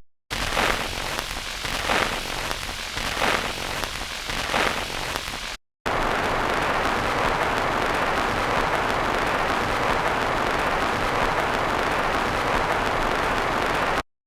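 Damaged vinyl record surface noise, hissing and crackling, with a louder swish coming round about every second and a half. After a short break it becomes a dense, even crackle that cuts off suddenly.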